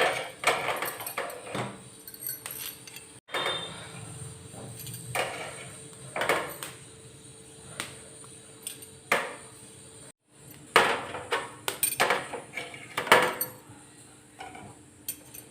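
Scattered metallic clinks and light knocks, one every second or two, from ginger pieces and a utensil on a gas stove's burner grate as the ginger is roasted over a low flame. A low steady hiss runs underneath.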